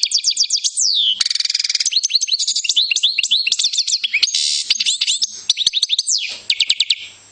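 European goldfinch singing: a fast, continuous twitter of high, quickly falling notes, broken twice by short buzzy passages, stopping just before the end.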